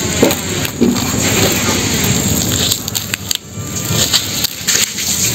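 Close rustling and scraping of plastic twine being wrapped and pulled tight around a live mud crab on wooden boards, with scattered sharp clicks and crackles. A steady high hiss runs behind it.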